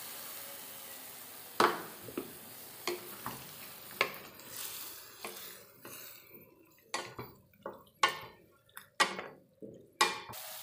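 Chopped vegetables sizzling in a kadai while a wooden spatula stirs them, knocking and scraping against the pan. The sizzle dies down about halfway through, leaving mostly the spatula's knocks.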